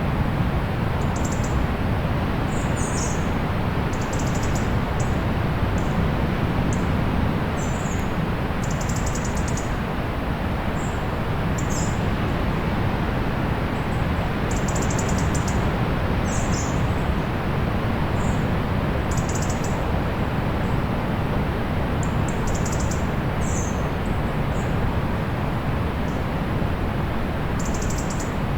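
Steady rush of distant sea surf, with small birds giving short, high chirps every second or two over it.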